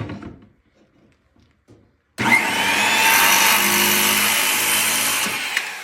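Circular saw starting suddenly about two seconds in and cutting through the end of a wooden board with a steady whine. Near the end the saw is released and its blade spins down with a falling whine.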